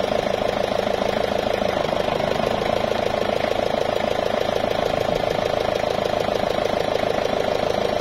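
Forklift engine idling steadily, powering the hydraulics while the mast is tilted by remote control. A low hum in the sound drops away about two seconds in.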